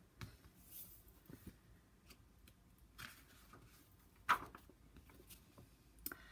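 Faint rustling and handling of a picture book's paper pages as a page is turned, with one sharper flick about four seconds in.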